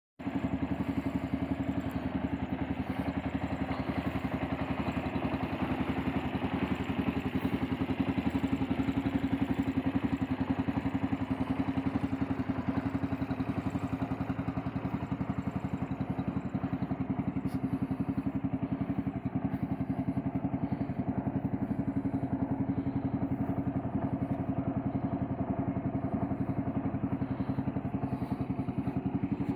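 Engine of a Motocar motorcycle-type cargo tricycle idling steadily at an even, rapid pulse.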